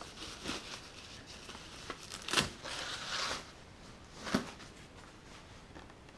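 Plastic packing wrap and paper rustling and crinkling as they are handled, with louder crinkles about two and a half seconds in and again past four seconds.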